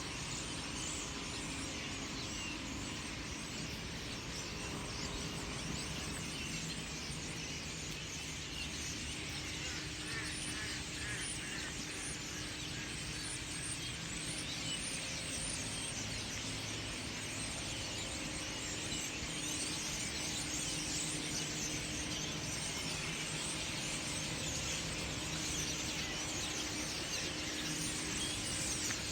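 A large flock of birds chirping and chattering continuously, many calls overlapping, over a low steady hum.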